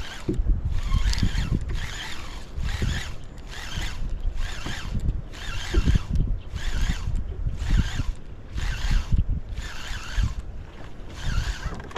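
A baitcasting reel being cranked in short bursts, one about every second, each burst about half a second of line winding in, with brief pauses between. Wind rumbles on the microphone underneath.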